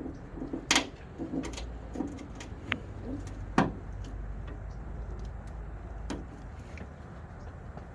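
Scattered sharp plastic clicks and taps from a trim-clip tool prying out the hood's plastic push-pin retainers. The two loudest come about a second in and midway through.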